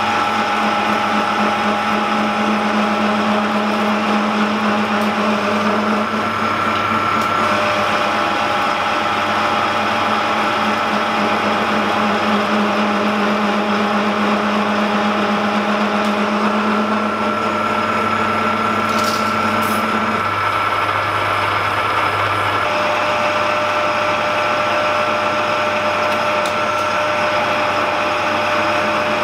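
A metal-turning lathe running steadily while a carbide tool cuts a steel locomotive driving-wheel blank, facing it back to form a spigot. It makes a steady machine whir with a few held tones.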